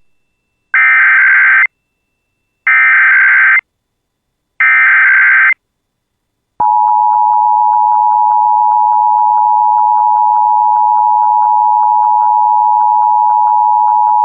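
Emergency Alert System test: three roughly one-second bursts of screechy SAME digital header data, separated by short silences, then a steady alert tone that starts about six and a half seconds in and holds.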